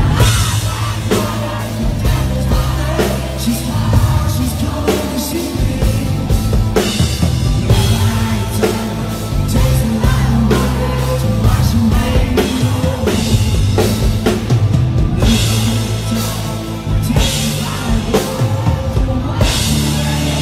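Live country-rock band performance: a male lead vocal sung over electric and acoustic guitars, bass and a drum kit, loud and steady.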